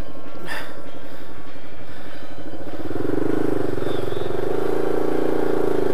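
Single-cylinder dual-sport motorcycle engine running on a rough trail, with one short knock about half a second in. About three seconds in, the engine note gets louder and fuller as throttle is opened, then holds steady.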